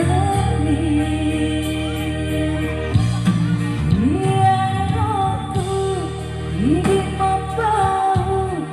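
Song: a vocalist sings a melody of held notes that slide up and down in pitch over a steady band backing with bass.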